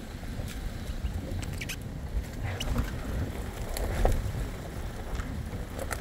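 Four-wheel drive driving slowly over a rough dirt track: a low engine and tyre rumble with scattered clicks and knocks from the bumpy ground, the loudest thump about four seconds in.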